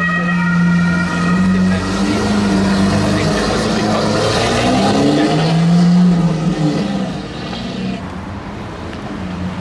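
Ferrari 296 GTB's twin-turbo V6 running, its pitch rising in short revs about two seconds and five seconds in before settling back.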